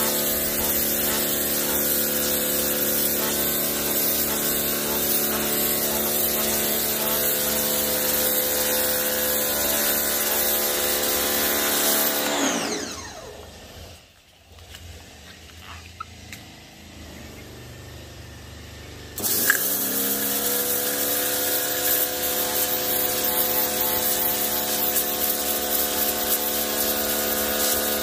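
Ryobi electric pressure washer running with its spray hissing, then winding down with a falling pitch and stopping a little under halfway through. After several quiet seconds it restarts with a click and spins back up to a steady run, as the motor-pump stops and starts with the gun's trigger.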